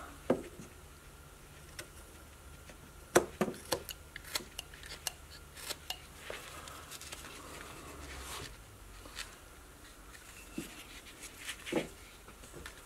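Carving knife slicing small slivers from a basswood figure: scattered short scraping cuts and clicks, with a quick run of several cuts about three to four seconds in.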